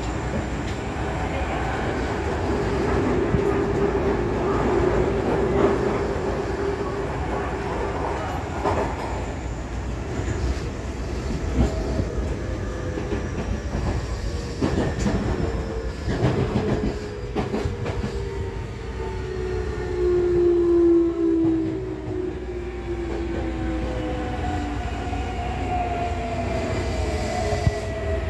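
Toei 6300-series subway train heard from inside the car, running over the rails with a few clacks from rail joints. In the second half, the traction motors' whine falls steadily in pitch as the train slows down.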